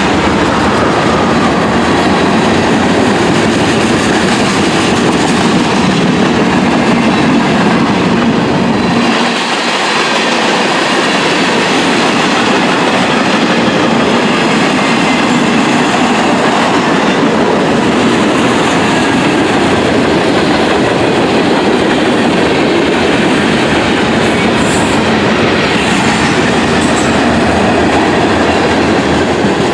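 Freight train cars rolling past close by: a steady loud rumble of wheels on rail with clickety-clack over the joints. The deep rumble briefly drops away about nine seconds in.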